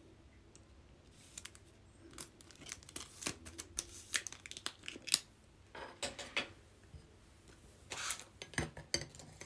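Trading cards being handled and slid through the hands: scattered faint clicks, taps and rustles of card stock.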